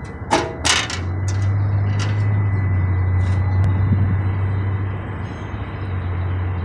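A steady low hum sets in about a second in and holds. A few sharp knocks and clicks near the start, typical of a phone being handled, sit over a faint steady high whine.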